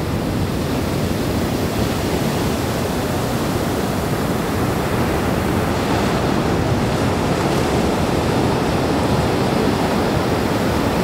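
Ocean surf: waves breaking and washing in the shallows, a steady, even rush of water noise.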